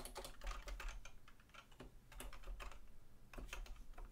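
Computer keyboard typing: a run of faint, irregular key clicks.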